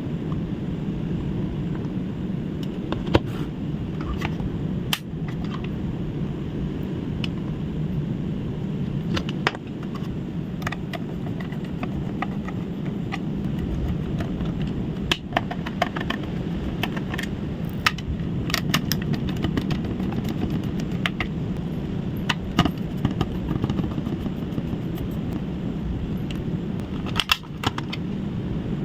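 Scattered sharp clicks and taps of small tools and parts being handled during an electronics repair, over a steady low background rumble.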